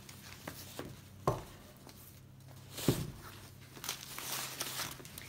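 Cloth drawstring dust bag rustling and crinkling as a leather handbag is worked out of it, with two dull knocks, the second the louder, about a second and three seconds in.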